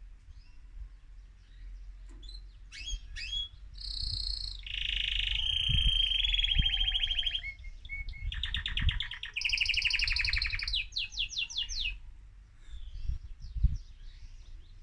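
A male mosaic canary singing hard: after a few faint chirps, a run of fast trills and rapidly repeated notes lasting several seconds, which tails off near the end. A few low thumps fall in the song, the sharpest one near the end.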